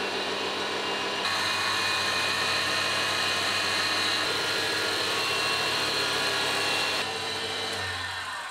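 Newly fitted single-phase electric motor on a Wadkin Bursgreen cabinet table saw, on a test run, turning the saw arbor through a belt and new pulley. It runs steadily with a constant mains hum. Near the end its level drops and it fades as it winds down.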